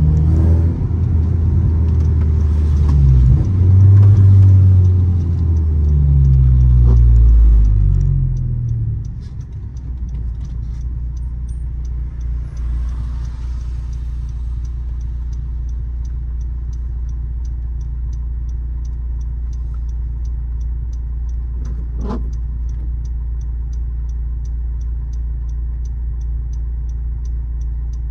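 Engine and aftermarket downpipe and exhaust of a turbocharged 9th-generation Honda Civic Si, heard from inside the cabin: it pulls through the revs, rising and falling for about eight seconds. It then settles to a steady low idle drone with light, even ticking, typical of a turn signal.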